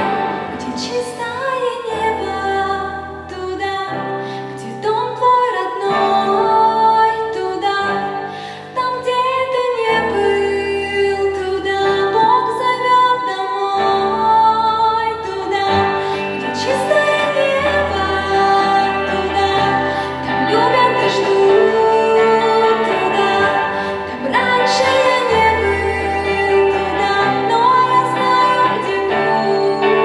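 A woman singing a song into a microphone, accompanied by two electric guitars, with long held low notes under the melody.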